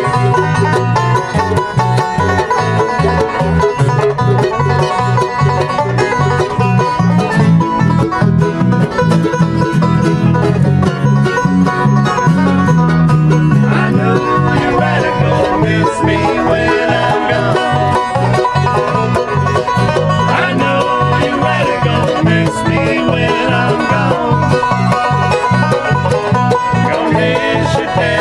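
Bluegrass music played with the banjo out front over guitar, a steady picked rhythm.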